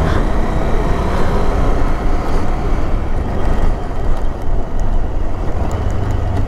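Adventure motorcycle engine running as the bike is ridden along a trail. The low engine rumble grows stronger about five and a half seconds in.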